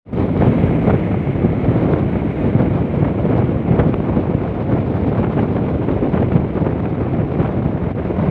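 Steady wind rushing over the microphone aboard a fast-moving speedboat, mixed with the noise of the boat running over the water.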